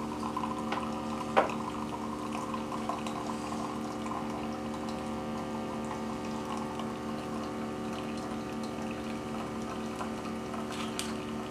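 Spinn centrifugal coffee maker whirring steadily as its centrifuge spins out an espresso shot, with coffee running into the glass. A single sharp click about a second and a half in.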